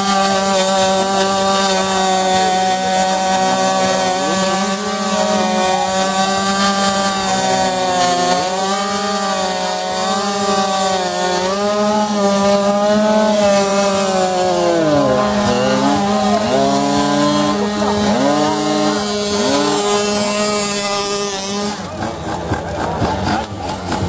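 Tuned two-stroke scooter engine held at high revs during a burnout, the rear tyre spinning in place. Its pitch wavers and dips again and again as the throttle is worked. The engine cuts off about 22 seconds in.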